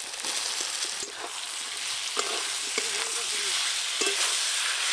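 Fried potato and taro pieces tipped into spice paste sizzling in oil in a metal wok, then stirred with a metal spatula. A steady sizzle sets in just after the start, with a few scrapes and knocks of the spatula against the pan.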